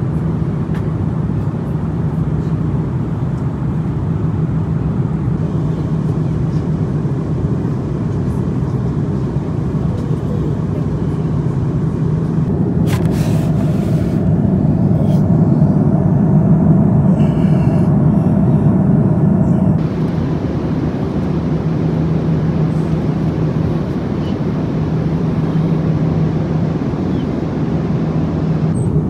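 Steady drone of an Airbus A330-300 airliner's GE CF6 engines and airflow heard inside the cabin, with a low hum. It swells for several seconds in the middle, when a higher tone joins it, then settles back.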